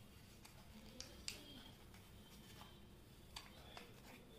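Near silence, broken by four faint clicks of origami paper being creased and pressed between fingers, the loudest just over a second in.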